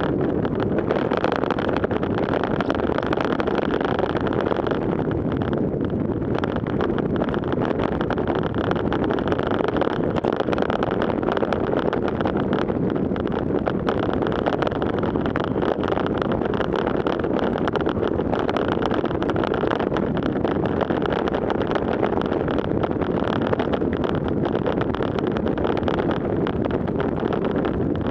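Steady rush of wind buffeting a bicycle's handlebar-mounted camera microphone at about 38 km/h, mixed with the hiss of road-bike tyres rolling on wet pavement.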